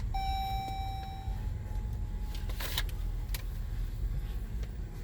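Car's low running rumble heard from inside the cabin. Near the start a steady tone sounds for about a second and a half, and a few sharp clicks follow around the middle.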